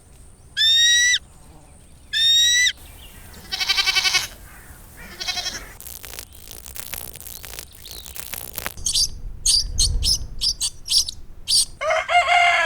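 A string of different animal calls, one after another: two short high calls that sweep downward, a couple of rattling trills, a stretch of hissing, quick repeated chirps, and then a rooster starting to crow near the end.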